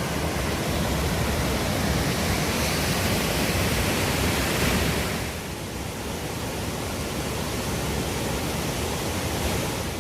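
Waterfall: a steady rush of falling water, louder for the first half and easing a little about five seconds in.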